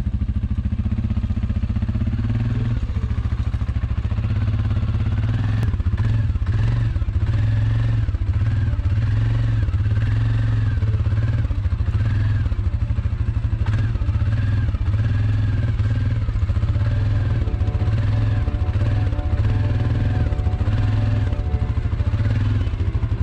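Background music with a heavy, steady bass and a short high melody that repeats about every second.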